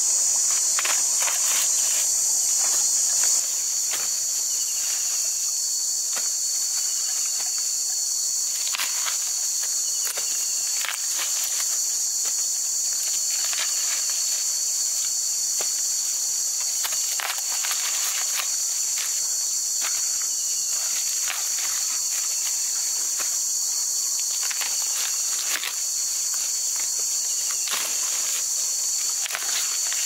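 Steady high-pitched insect chorus buzzing throughout, easing slightly a few seconds in. Over it come scattered rustles and sharp snaps of corn husks and stalks as ears of corn are broken off and dropped into a bamboo basket.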